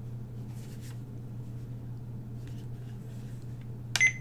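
Steady low hum with faint handling rustles of a plastic digital alarm clock; a little before the end, a sharp double click with a brief high-pitched tone as a setting button on the clock is pressed.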